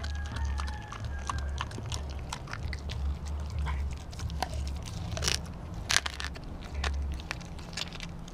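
Dog chewing a raw poultry neck held to its mouth: wet bites and crunches of bone and gristle, with the loudest crunches about five and six seconds in.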